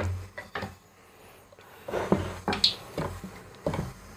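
Wooden rolling pin rolling bhatura dough on a granite slab: a few irregular light knocks and short rolling scrapes.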